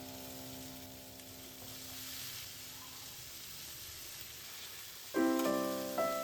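Food sizzling faintly in a frying pan under soft background piano music. A held piano chord dies away at the start, then new piano notes strike in about five seconds in.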